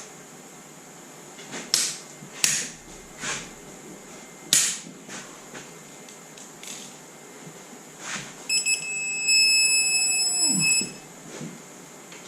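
Cylinder head bolts being torqued with a digital torque wrench: a few sharp clicks, then a steady electronic beep for about two seconds near the end as the bolt reaches its set torque.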